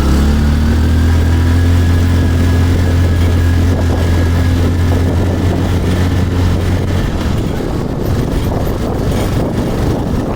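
A motor vehicle's engine running with a steady low drone. After about seven seconds the drone fades into rougher, noisier rumble.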